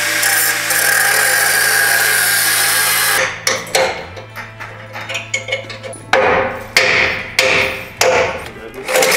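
Angle grinder cutting into the steel frame steadily for about three seconds while the old suspension mounts are ground off. Then comes a run of short, sharp bursts of metal noise, about two a second.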